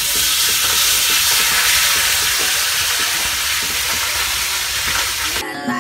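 A loud, steady hiss that stops abruptly near the end, where background music with a beat comes in.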